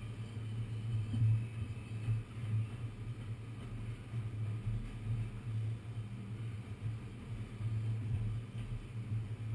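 Steady low rumble and hum inside a New York City subway car as it runs, a continuous drone with no distinct events.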